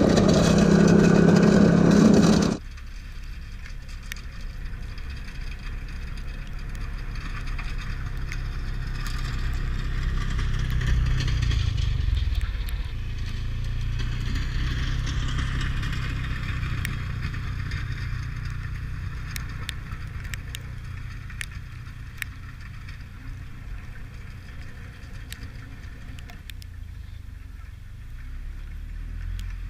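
Arctic Cat Alterra 550 XT ATV engine running loud and close for about two and a half seconds, then cutting suddenly to a faint low rumble of the same ATV working at a distance. The rumble swells about ten seconds in and settles.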